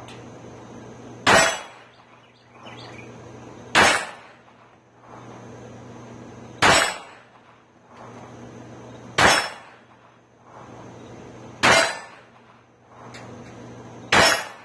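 Six pistol shots from a Taurus TCP .380 ACP pocket pistol, fired slowly about two and a half seconds apart. Each is a sharp crack that dies away over about a second. The pistol cycles every round from an aftermarket ProMag 10-round magazine without a stoppage.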